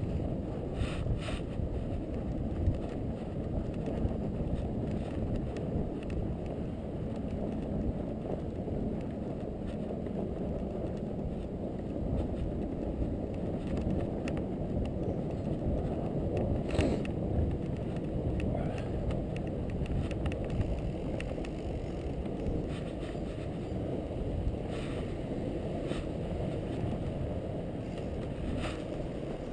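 Steady low rumbling noise from riding a fat bike through snow: wind on the microphone and the wide tyres rolling, with a few short sharp clicks.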